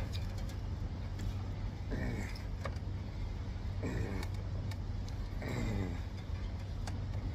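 A man's short strained grunts, three of them about two seconds apart, as he heaves on a wrench to turn a bearing puller's bolt, over a steady low hum.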